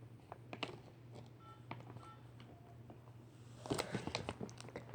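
Faint scattered clicks and rustles of fireworks packaging being handled, with a denser patch of crackly handling noise about four seconds in, over a low steady hum.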